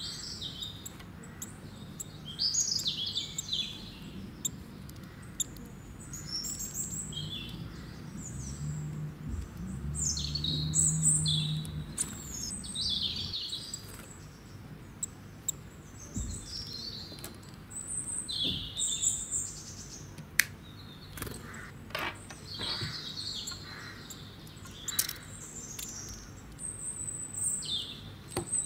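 Birds chirping, many short high calls repeating one after another. A low rumble swells about ten seconds in, and a few sharp clicks come later, the loudest about twenty seconds in.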